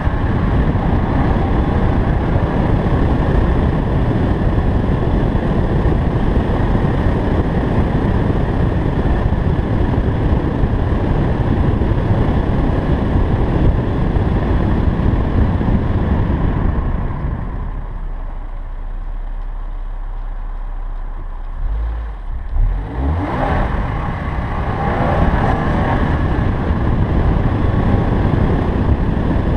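Subaru BRZ tS driving, heard from a camera mounted outside on the hood: wind and road noise over the car's flat-four engine. A bit past the middle it drops to a low steady hum for a few seconds, then builds again as the car picks up speed.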